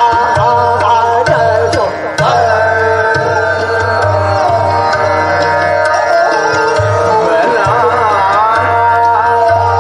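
Hindustani classical vocal music: a male voice sings gliding, ornamented phrases over a steady held drone, accompanied by tabla strokes with deep bass-drum pulses.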